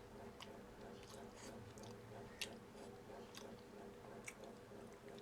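A person chewing food close to the microphone: scattered wet mouth clicks and smacks, about six of them, the loudest about two and a half seconds in, over a faint steady hum.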